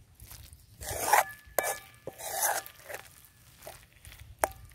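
A metal spoon stirs and scrapes a thick sorrel-leaf curry around a metal wok in a few rough strokes. Light clinks of spoon on pan leave the wok ringing briefly.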